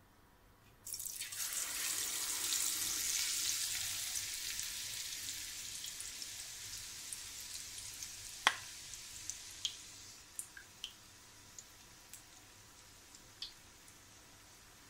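Gram-flour pakora batter dropped into hot oil: a sudden loud sizzle starts about a second in and slowly dies down. Scattered sharp pops and crackles run through it, the loudest about eight seconds in.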